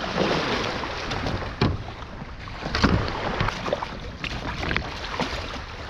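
Small waves lapping at the shore around a beached kayak, a steady wash, broken by a few sharp knocks as the kayak and its paddle are handled.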